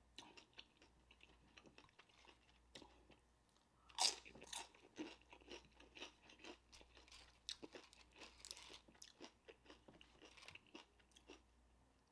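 A person biting into crunchy food close to the microphone, one crisp crunch about four seconds in, then chewing with many small crackling crunches.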